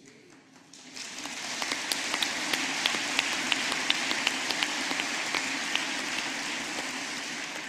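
Audience applauding: a brief hush, then clapping that swells about a second in, holds steady with single claps standing out, and tapers off near the end.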